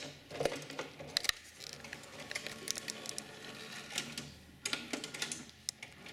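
Betamax cassette being pushed into a Super Beta Hi-Fi video deck and taken in by its loading mechanism: a scattered series of sharp plastic and mechanical clicks and clacks.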